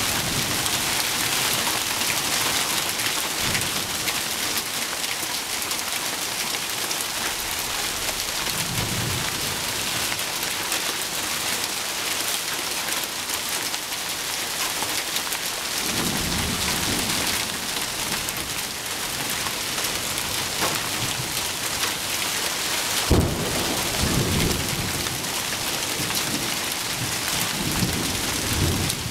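Heavy thunderstorm downpour, rain pouring steadily onto surfaces. Thunder rumbles low about nine seconds in and again longer around sixteen seconds, then a sharp loud clap a few seconds later rolls on into rumbling.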